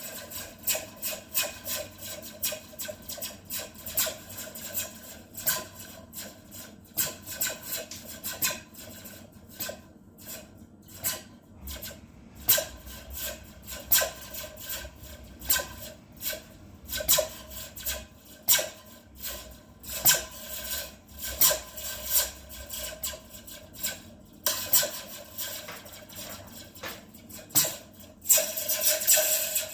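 Slinky spring coupled to a foam cup, repeatedly plucked and shaken to make short laser-like zaps, many in a row at irregular intervals of about one or two a second, with a rasping, metallic ring.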